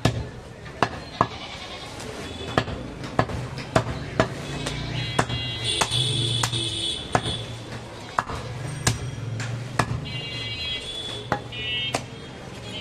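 A butcher's cleaver chopping goat meat and bone on a wooden log chopping block, in sharp, irregularly spaced strokes about one or two a second. A higher pitched sound rises behind the chops twice, about halfway through and again later.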